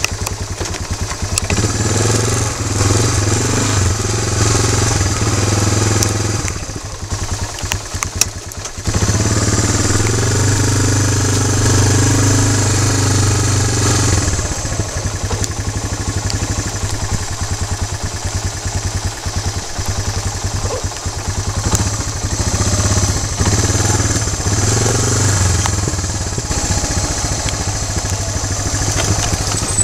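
ATV engine running while the quad is ridden, revving up in three longer stretches and easing back to a rougher, lower run between them.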